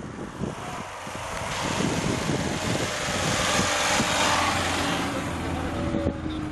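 Lada Niva engine running hard as it drives through deep snow, with a rushing noise that swells to a peak partway through and then eases off. A steadier engine hum follows near the end.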